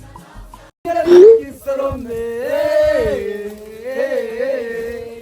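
A short loud bump about a second in, then a voice holding long, wavering, sliding notes, singing-like rather than spoken.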